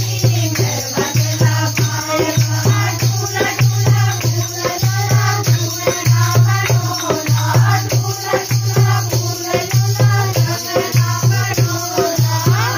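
Group of women singing a Hindu devotional kirtan, kept in rhythm by steady hand-clapping and shaken percussion.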